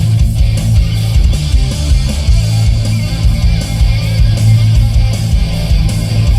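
Rock music with guitar playing loud through a 2014 Ford Flex's factory Sony stereo, with a steady beat. The sound is heavy and boomy in the bass, and the treble does not come through: the factory tweeters are weak.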